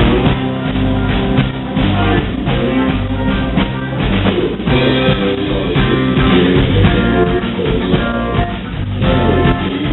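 Live band playing an instrumental stretch of a country-rock song, with electric guitar and a drum kit keeping a steady beat.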